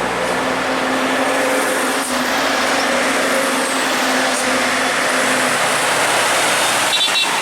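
Large bus running close by: loud, steady engine and road noise with a low steady hum that stops about three quarters of the way through.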